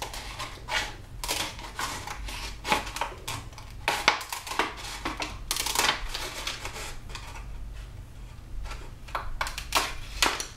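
Thin PET soda-bottle plastic being cut around its base with scissors and handled, giving irregular crinkling crackles and clicks. They come thickly for the first six seconds or so, then more sparsely, with a few sharp clicks near the end.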